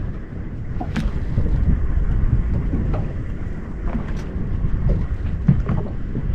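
Wind buffeting the microphone on an open boat at sea: a steady low rumbling noise, with a few faint clicks scattered through it.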